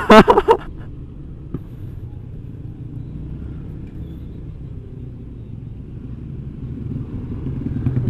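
Automatic motor scooter being ridden at a steady speed: a constant low engine drone mixed with wind and road rumble, with no revving or gear changes.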